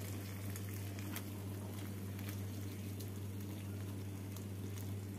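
Chickpea masala gravy simmering and sizzling in a frying pan, with small scattered pops as it is stirred with a silicone spatula, over a steady low hum.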